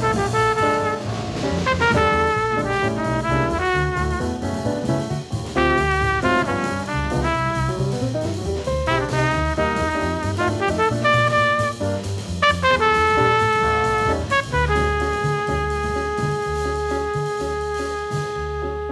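Small-group jazz: a trumpet plays quick phrases over bass and drums, then holds one long note for the last few seconds while the rhythm section keeps going underneath.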